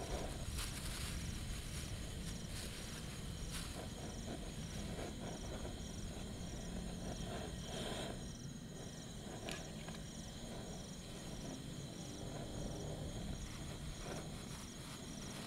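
Night insects chirping in a steady, evenly repeating high pulse, over a low rumble, with a few scattered clicks and rustles of camping gear being handled.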